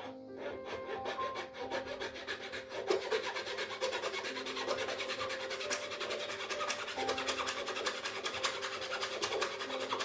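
Wood being scraped by hand with a carving tool in quick, repeated strokes, several a second, as a spoon is shaped, over soft piano music.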